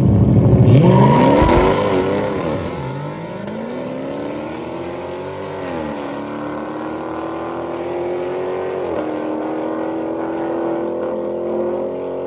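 A Dodge Challenger and a Ford Mustang racing at full throttle from a standing start, engines loudest in the first two seconds. The pitch climbs steadily and drops at each upshift, about every three to four seconds, as the cars pull away.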